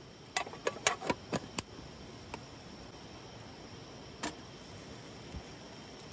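Several sharp metal clinks in quick succession as a metal mess tin and its lid are handled, then a single clink about four seconds in as the tin is set down on the grill over the campfire.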